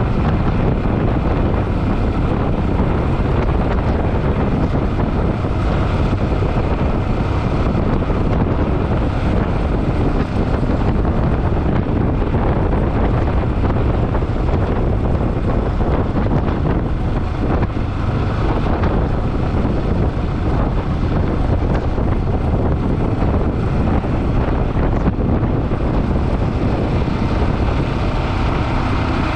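Motorcycle on the move: a steady engine drone mixed with heavy wind rushing over the microphone.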